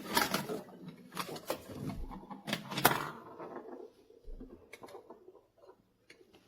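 Clicking and clacking of hard plastic magnetic building tiles, a dense clatter of knocks that thins out after about four seconds.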